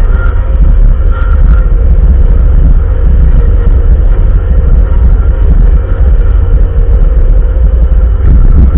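Bobcat loader's diesel engine running steadily with a heavy low rumble, a faint steady whine riding over it.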